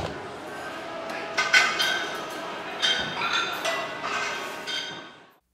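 Metal gym weights clinking and clanking several times over a busy gym's background noise, then cutting off abruptly near the end.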